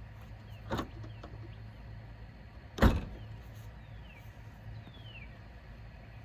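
Two short knocks about two seconds apart, the second much louder, over a steady low hum.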